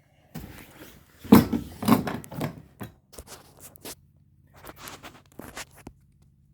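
Irregular scraping and rustling handling noises with a few short sharp clicks, loudest about a second and a half in.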